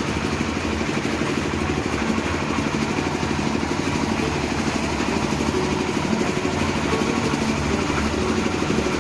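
Engine of a concrete mixer with lift hoist running steadily, with a fast, even pulse.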